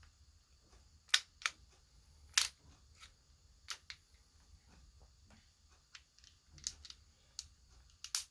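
Sharp metallic clicks of a Star BKS 9mm pistol's parts being fitted back together during reassembly: a handful of separate clicks spaced about a second apart, with two quick clicks near the end.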